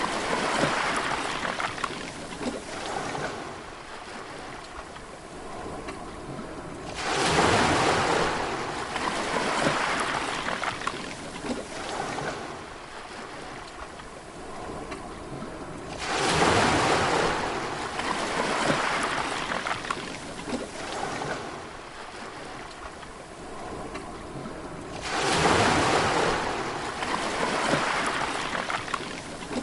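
Sea waves breaking, a loud rush of surf swelling about every nine seconds and fading slowly into a softer wash before the next one.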